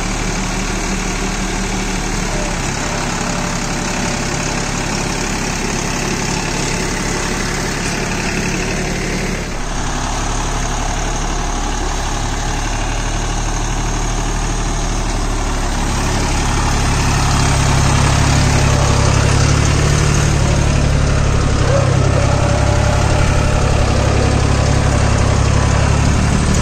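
Deutz-Fahr Agromaxx 4055E tractor's diesel engine running steadily while pulling a rigid cultivator in low third gear and four-wheel drive. The engine grows louder about two-thirds of the way through.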